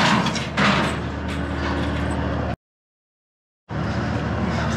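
A steady low engine hum, with two loud rattling clatters of metal being handled in the first second. The sound cuts out completely for about a second in the middle.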